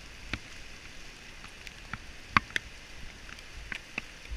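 Raindrops tapping on the camera and gear in irregular, sharp ticks, over a steady hiss of rain.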